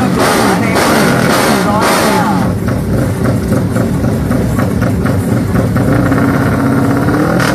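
Drag-racing motorcycle engine revving at the start line. The pitch swings up and down in quick blips for the first couple of seconds, then holds steadier and climbs again near the end.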